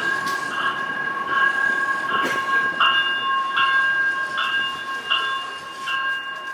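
Light rail warning bell ringing repeatedly, about one strike every three-quarters of a second over a steady ringing tone, fading near the end.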